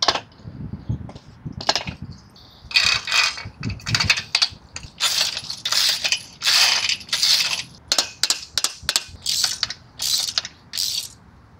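Hand ratchet wrench tightening a nut onto a bolt of a metal rack frame: about a dozen ratcheting strokes, each a short burst of clicking, with a couple of dull knocks in the first few seconds.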